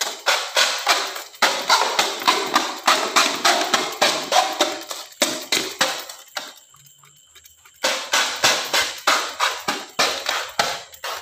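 Toy gun clicking rapidly, about five sharp plastic clicks a second. The clicks stop for a moment about six seconds in, then start again.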